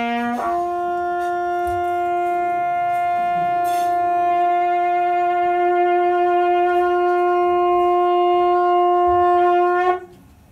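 A horn blowing a short lower note, then stepping up to a higher note held steadily for about nine seconds, cutting off abruptly near the end.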